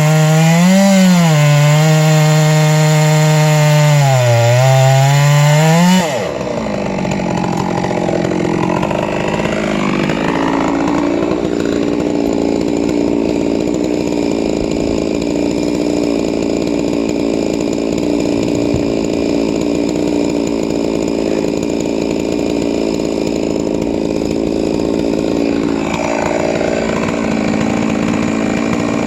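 Chainsaw running at high revs, its pitch wavering up and down. About six seconds in, the sound changes abruptly to a slightly quieter, steadier note that holds for the rest of the time.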